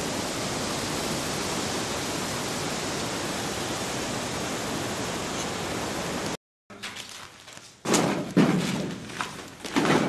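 Steady hiss of heavy rain and wind from a tropical storm. It cuts off abruptly about six seconds in, and then a few loud thumps follow, the last of them near the end.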